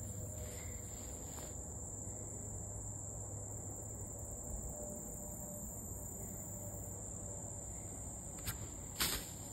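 A steady, high-pitched insect chorus. Two brief knocks sound near the end, the second louder.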